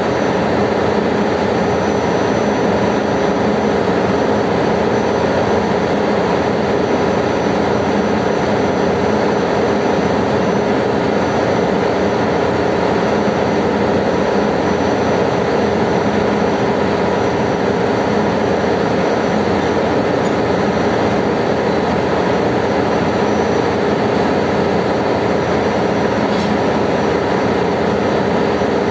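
Ship's engine-room machinery noise: a loud, steady drone with a constant hum running underneath, unchanging throughout.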